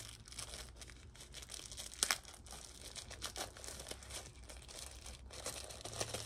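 Earbud packaging being handled: scattered crinkling and rustling with small clicks, and one sharper click about two seconds in.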